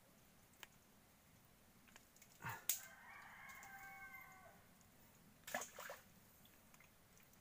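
Quiet hand-digging in a water-filled mud hole: a short wet slosh and squelch about two and a half seconds in, and another a little past halfway. Between them, a faint distant animal call is held on one pitch for about a second and a half, dipping at its end.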